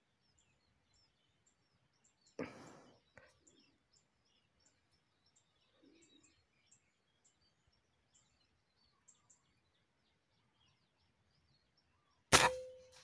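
Faint bird chirps, a brief rustle, then near the end a single sharp, loud air rifle shot followed by a short ringing tone.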